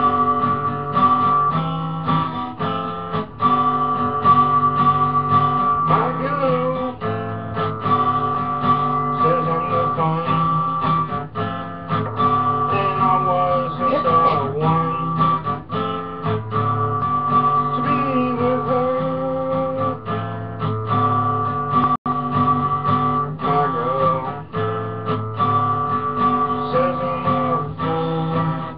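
Acoustic guitar music with strummed chords changing every second or two, over steady, continuous playing.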